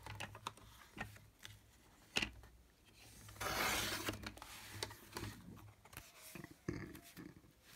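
Paper being trimmed and handled: scattered small clicks and taps, with one longer cutting and rasping sound of about a second and a half starting about three and a half seconds in.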